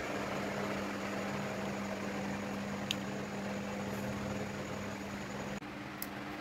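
Steady machine-like hum with a low steady tone over even hiss, such as a fan or air conditioner running. A faint tick about three seconds in, and the hum shifts slightly about five and a half seconds in.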